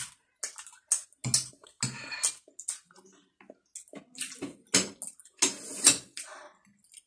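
Close-miked eating sounds of steamed momos and soup: wet chewing and smacking in quick, irregular bursts, with the longest burst near the end.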